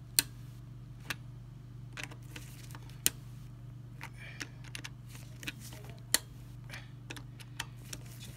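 Metal screwdriver clicking and scraping on the screws of a Riello burner's wiring terminal block as the terminals are tightened: scattered sharp clicks, a few of them loud, over a steady low hum.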